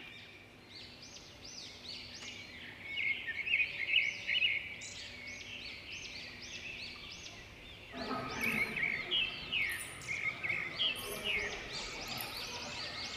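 A dense chorus of many small birds calling at once: rapid, overlapping chirps that grow busier about three seconds in and again about eight seconds in.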